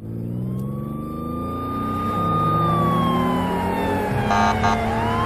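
Police car siren sound effect wailing: it rises to a held high tone, slides slowly down, then rises again near the end, over a car engine revving up. Two short bursts of noise come about four and a half seconds in.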